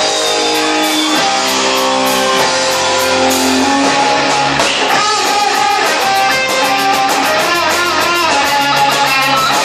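Live band music with guitar, played loud through the stage sound system, with held notes over a bass line.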